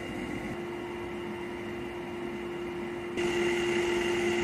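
Old air-conditioner condensing fan running in a steel-barrel shroud: a steady rush of air with an even motor hum and whine. It gets suddenly louder about three seconds in.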